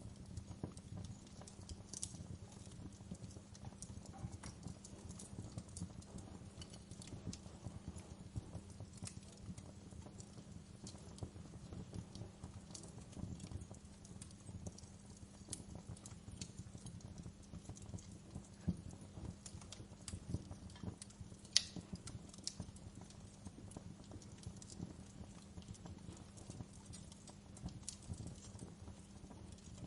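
Wood fire in a fireplace crackling continuously, with scattered sharp pops over a low steady hum; the loudest pop comes about two-thirds of the way through.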